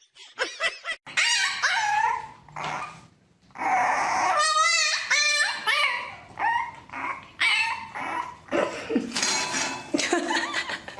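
Dogs whining and yipping in a run of short, high cries, some with a quickly wavering pitch, mixed with a few barks.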